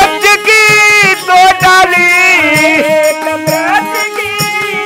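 Devotional folk bhajan music: a harmonium playing steady held chords and melody, a dholak beating a steady rhythm, and small hand cymbals. A voice holds and slides between notes over the accompaniment.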